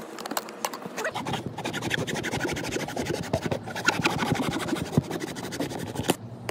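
A bare hacksaw blade held in the hand, sawing through a plastic pipe stub with rapid back-and-forth rasping strokes. The cut finishes near the end, with a sharp click as the top comes free.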